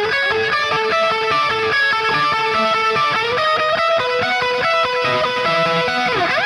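Electric guitar fitted with a Warman Zebra Classic Hot humbucking pickup, played as fast single-note lead runs. Near the end it slides quickly down the neck and back up.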